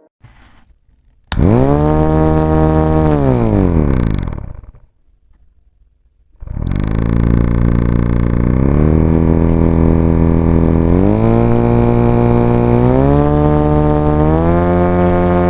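Small DC motor of a homemade cardboard fan whining as it spins up, then winding down to a stop when switched off. It starts again and its pitch rises in several steps as the potentiometer speed control is turned up.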